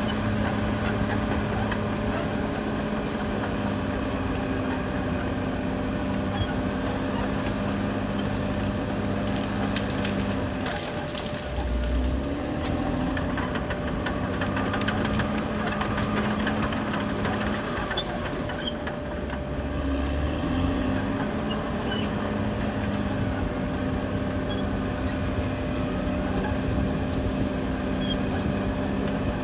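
Caterpillar D6R XL bulldozer's diesel engine running steadily under load. Its note drops and then climbs back up twice, about eleven and twenty seconds in.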